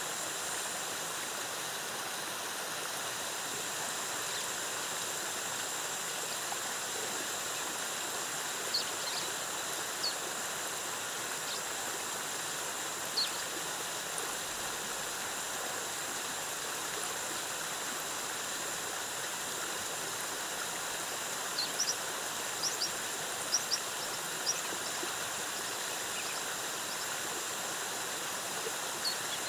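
Steady rushing of a jungle waterfall cascading into water, with scattered short high chirps a few times in the middle and later part.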